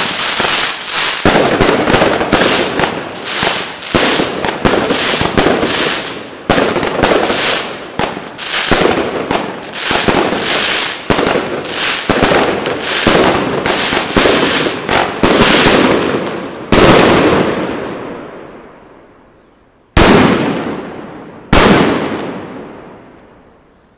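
A 25-shot 20mm firework cake (El Gato Pirotecnia 'Sonora') firing shot after shot, a fast run of loud bangs for about seventeen seconds. Two last shots follow a few seconds apart near the end, each fading away over a couple of seconds.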